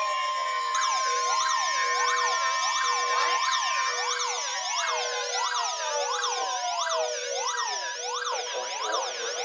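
A steady 1050 Hz weather-radio warning alert tone held on, under a dense pile of electronic sirens wailing and yelping up and down, one of them rising and falling about every two-thirds of a second. The steady tone drops out about halfway through and comes back as short beeps near the end.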